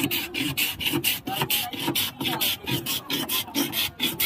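A block of ice being shaved by hand on an ice-shaving plane, scraped back and forth across the blade in quick rasping strokes, about three or four a second.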